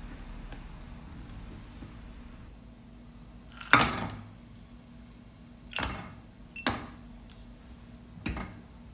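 Broken pieces of dark chocolate tipped from a bowl into a coated saucepan of warm milk mixture, landing with a sharp clatter about four seconds in, followed by three lighter knocks against the pan as they are stirred in with a silicone spatula.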